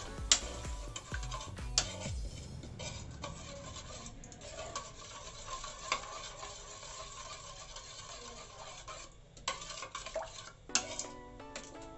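Steel spoon stirring thick yogurt in a bowl, mixing in salt and chaat masala: a continuous wet scraping with a few sharp clinks of the spoon against the bowl's side.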